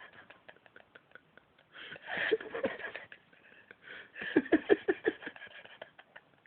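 A man in a sneezing fit: a loud sneeze about two seconds in, then a run of quick loud bursts about four seconds in, with faint small clicks between.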